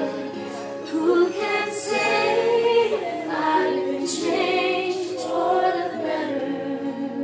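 A group of young singers, mostly women with a few men, singing a song together with held notes.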